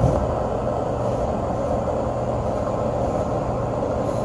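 Air-conditioning condenser unit running steadily, its fan and compressor giving an even whooshing hum, with a short knock right at the start. The unit has a freshly cleaned coil.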